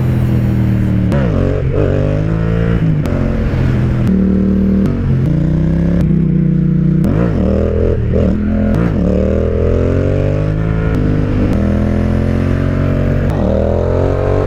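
Yamaha MT-07's parallel-twin engine through an Akrapovic exhaust, ridden hard and revving up through the gears. The engine note climbs and then drops at each shift, several times over.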